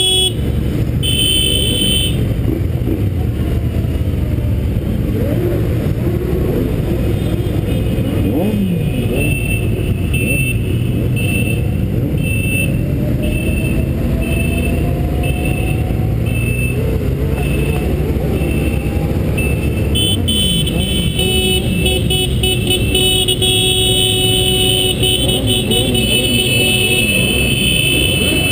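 Riding sound from a moving motorcycle: heavy wind rush and engine noise, with the engine's pitch rising and falling as the rider speeds up and eases off. A short high-pitched beep repeats quickly through the middle, and higher steady tones hold through the last several seconds.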